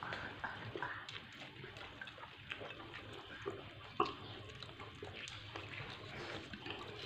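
People eating rice and chicken by hand from a shared plate: soft chewing and lip-smacking, with small clicks of fingers and food against the plate and one sharper click about four seconds in.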